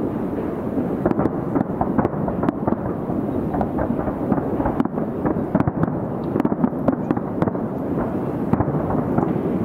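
A fireworks display heard from about 2 km away: aerial shells bursting one over another, so the booms and crackles run together into a continuous rumble. Distance muffles it, leaving little high end.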